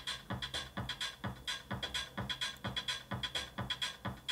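Music with a quick, steady beat played through a bare subwoofer driver from a small mono amplifier module, unfiltered, so the full range of sound, highs included, comes from the woofer. Running the full range into a subwoofer this way is what risks damaging it.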